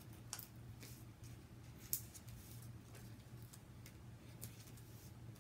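Faint rustling and small ticks of a paper backing sheet of foam adhesive dimensionals being handled and peeled, with one sharper click about two seconds in, over a low steady hum.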